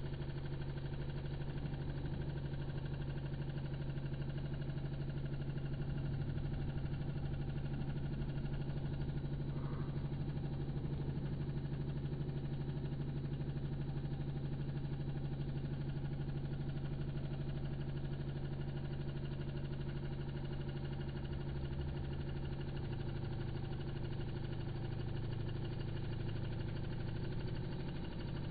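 Aquarium pump humming steadily, a low, even mechanical drone.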